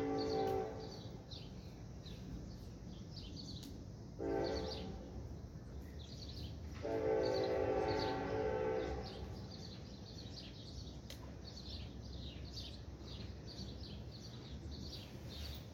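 Distant train horn sounding in steady blasts: one ending just after the start, a short blast about four seconds in, and a longer blast about seven seconds in, over a low rumble. Small bird chirps repeat throughout.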